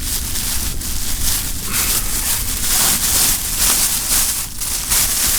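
Strong gusty wind, a loud rushing that swells and fades in gusts, with wind rumbling on the microphone.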